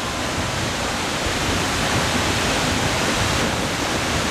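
A large waterfall pouring, a steady, even rush of noise.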